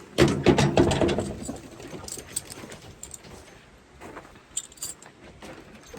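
Metal clinking and rattling, loudest in the first second, then scattered light clicks.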